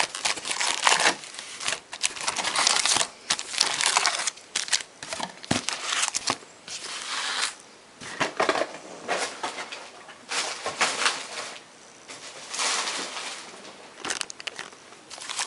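Plastic packaging and card-pack wrappers crinkling and being crushed by hand, in irregular bursts with short pauses, as the wrapper trash is pressed down.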